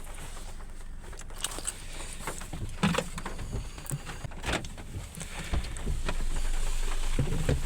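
Car engine idling, with scattered clicks and knocks; the engine hum grows louder about five and a half seconds in.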